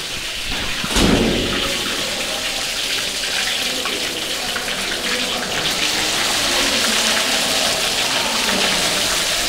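Flour-coated fish pieces being laid into hot oil in a wide pan, the oil sizzling: a sharp surge of sizzle about a second in as a piece goes in, then a steady frying hiss as more pieces are added.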